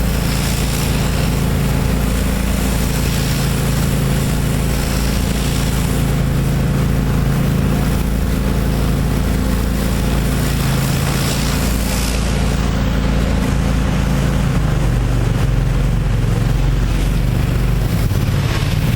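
Pressure washer's 30 hp air-cooled Kohler engine running steadily, with a strong hiss over it. About fourteen and a half seconds in, the engine's note shifts.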